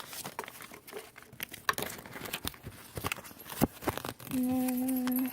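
Crinkling and crackling of packaging being handled, likely the Sea-Monkeys box or packet. Near the end comes a steady hummed tone lasting about a second.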